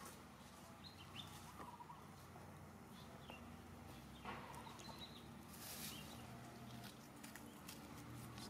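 Faint outdoor ambience with a few short high chirps and scattered light rustles and clicks.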